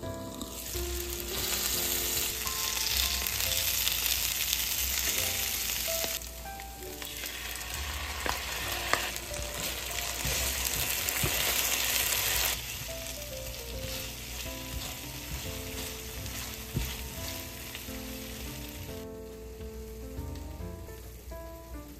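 Sweet potato meatballs sizzling in oil in a frying pan, loud in two stretches with a short drop about six seconds in, then quieter, and dying away a few seconds before the end. Light background music with held notes plays throughout.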